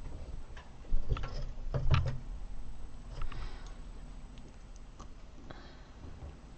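Quiet hand-sewing handling sounds: a couple of light knocks about one and two seconds in, then fainter fabric rustles and small clicks as the needle and thread are worked through the appliqué cloth.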